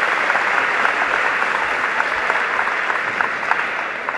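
Audience applauding, a dense mass of clapping that eases off slightly near the end.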